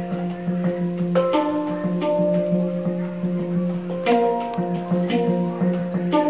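Music with a strummed guitar: held chords over a steady low note, changing chord about a second in and again about four seconds in.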